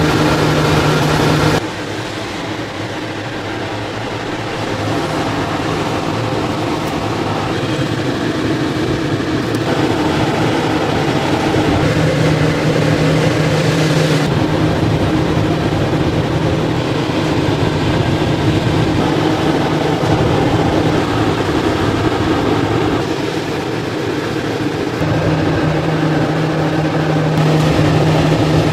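Conveyor pizza oven running, a steady mechanical hum from its fans and moving wire-mesh belt. A low drone drops away about a second and a half in and comes back twice later.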